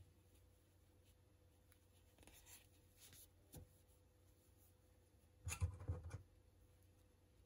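Faint scratchy rustling of a metal crochet hook being worked through yarn: a few short scrapes, then a louder burst of rubbing and handling about five and a half seconds in, over a faint steady hum.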